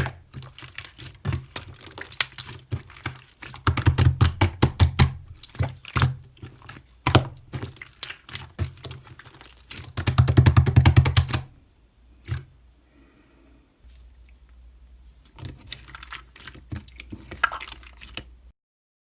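Clear slime squished and pressed by hand: a dense run of sticky popping and crackling clicks, with two louder stretches of rapid squelching. It goes almost quiet for a few seconds, crackles again briefly, then cuts off near the end.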